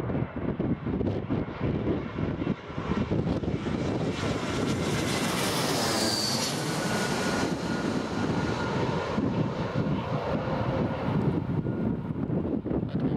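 Airbus A320-family airliner on final approach passing low overhead: the rush and whine of its jet engines swell to a peak midway, with a falling whistle as it goes over, then fade as it moves away. Gusts of wind buffet the microphone throughout.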